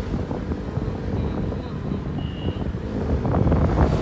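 Motorcycle riding: wind buffeting the microphone over the engine and road rumble. A single brief high beep sounds a little after two seconds in.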